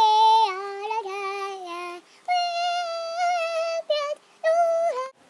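A young boy singing in a high voice: long, held notes in several short phrases with brief breaks between them.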